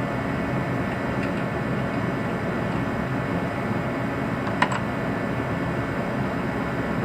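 Light metallic clicks of a wrench working a bolt deep in a cramped engine bay, one sharp click about two-thirds of the way through, over a steady low background hum.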